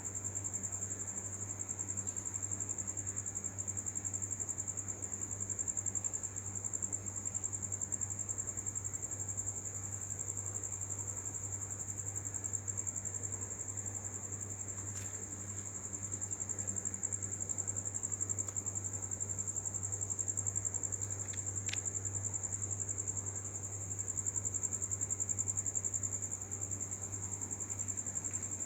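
Crickets at night trilling in one continuous high, unbroken chirping, with a steady low hum underneath.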